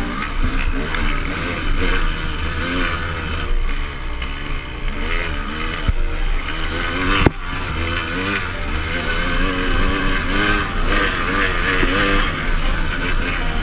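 KTM dirt bike engine revving up and down over and over under throttle, with a steady low rumble underneath and one sharp knock about seven seconds in.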